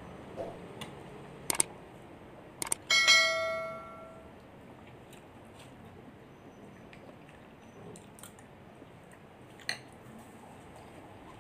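Metal spoon clinking against a glass bowl: a few light clicks, then one clear ringing clink about three seconds in that dies away over about a second, and another light tap near the end.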